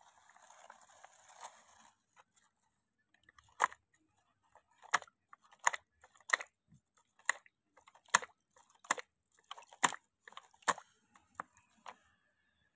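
Plastic toy jeep pushed by hand through wet mud and muddy water: about a dozen short crunching clicks at irregular intervals, starting a few seconds in.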